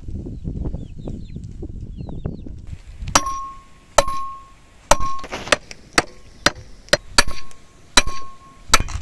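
Firewood being broken with a metal tool: about ten sharp strikes, roughly one a second, start about three seconds in. Several of them ring briefly, like metal struck against metal.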